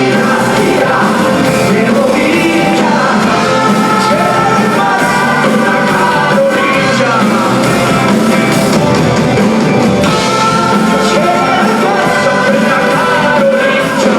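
Live rock band playing loudly, with sung vocals over the band.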